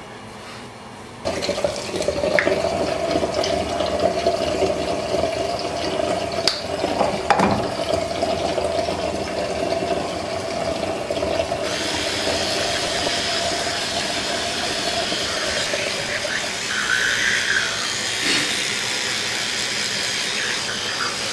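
Bathroom tap running steadily into the sink, turned on about a second in. From about halfway an electric toothbrush buzzes along with it during brushing.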